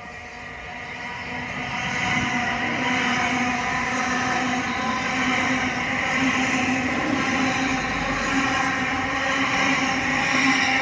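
Electric multiple unit train running past at speed, close alongside: the sound builds over the first two seconds as it arrives, then holds as a steady rush of wheels on rail with a steady hum.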